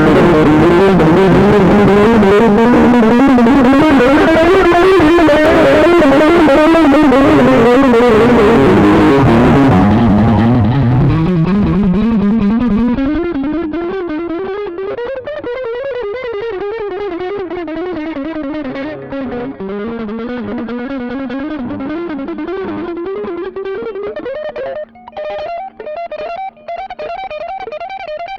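A looped electric guitar lead line played through a Caline 'British Sound' overdrive pedal, distorted, with a wavering melody. About ten seconds in, the tone turns darker and quieter as the pedal's settings are changed.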